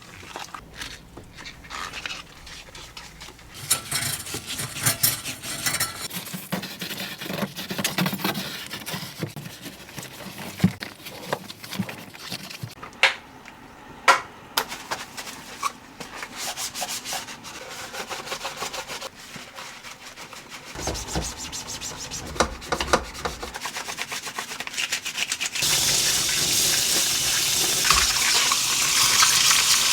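Hands-on household work: rubbing and scraping with scattered sharp clicks and knocks. Near the end a tap is turned on and water runs steadily.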